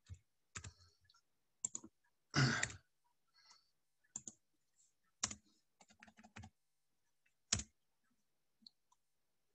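Computer keyboard typing: irregular keystrokes in short runs with pauses between them. A longer, louder noise comes about two and a half seconds in.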